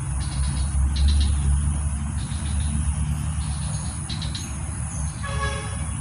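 Outdoor ambience: a steady low rumble under a thin high insect buzz, with short insect chirps a few times and a brief pitched tone near the end.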